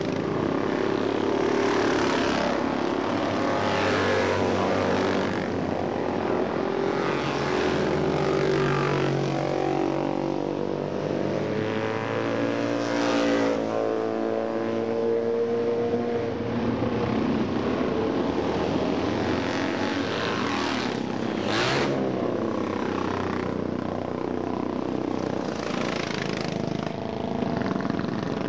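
Vintage DKW two-stroke racing motorcycles running past one after another, their engines rising and falling in pitch as they accelerate and go by, with one close, sharp pass a little over two-thirds of the way through.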